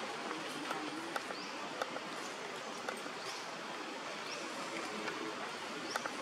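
Outdoor forest ambience: a steady rushing hiss with scattered sharp clicks and four short rising high chirps spread through it.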